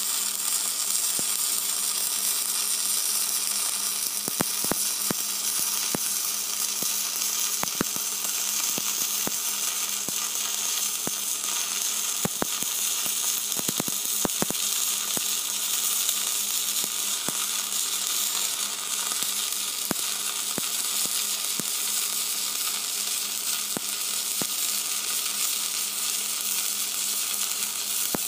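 Stick-welding arc burning a low-hydrogen electrode at about 70 amps on a capping run: a steady crackling sizzle, broken by scattered sharp pops, with a cluster of them about halfway through.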